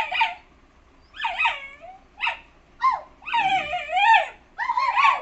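Puppy whining and yelping: a string of short high cries that fall in pitch, with a longer wavering whine about three seconds in.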